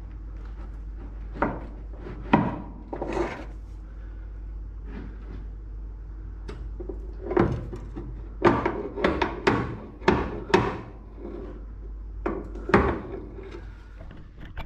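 Irregular metal knocks and clunks as the car's upper control arms are levered into place with a pry bar, coming thickest in a run of hits about halfway through, over a steady low hum.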